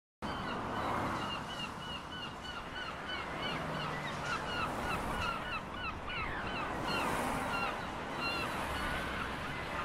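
A flock of birds calling over one another, many short repeated calls overlapping all the way through, over a steady background noise. The sound cuts in suddenly right at the start.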